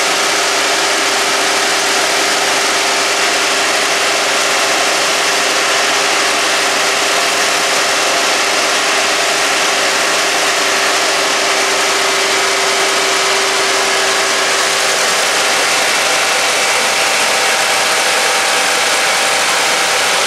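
Ford Escape's 1.5-litre four-cylinder engine idling steadily after a coolant refill, run so that coolant is drawn through the cooling system. An even hiss and a constant hum run under it without change.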